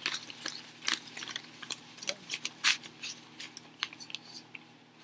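Stack of US hundred-dollar bills being flipped through and counted by hand: a quick, irregular run of crisp paper flicks and snaps, several a second.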